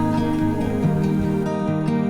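Background music: soft, calm instrumental with plucked guitar-like notes over held tones.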